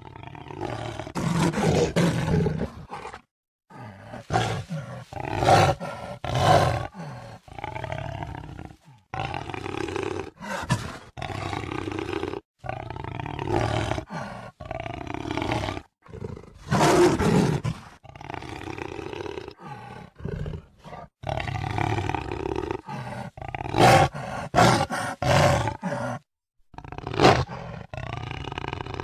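Jaguar roaring: a long run of calls, one after another, each a second or two long, with short silent breaks between them.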